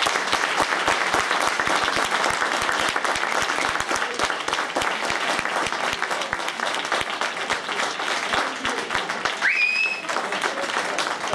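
A crowd of spectators applauding steadily throughout. A short rising whistle cuts through about nine and a half seconds in.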